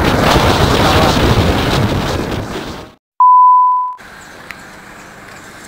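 Wind buffeting the microphone over the noise of a moving motorcycle, fading out to silence just under three seconds in. Then a loud, steady electronic beep at one pitch lasts most of a second, followed by a quiet outdoor background with a few faint clicks.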